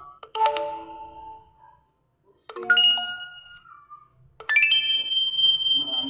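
Alcatel OT-991D phone's built-in speaker playing a chime ringtone preview: three struck chime notes about two seconds apart, each ringing and fading, the last higher and longer.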